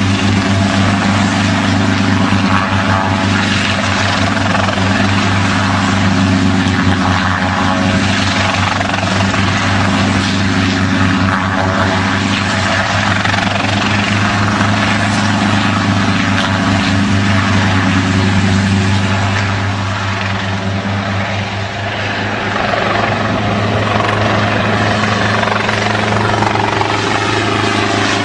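Hughes 300 light helicopter hovering low and manoeuvring: a steady engine drone with fast rotor blade chop, dipping briefly in loudness about three-quarters of the way through.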